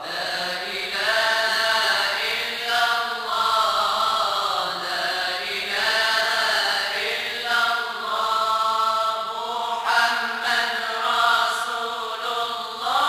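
Moroccan madih nabawi, Islamic devotional chanting in praise of the Prophet: voices chanting long drawn-out notes that bend and waver in pitch.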